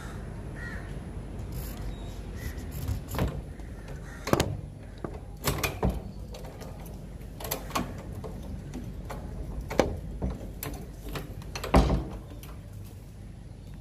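A series of scattered knocks and clunks, about half a dozen, the loudest a heavy thump near the end, over steady background noise.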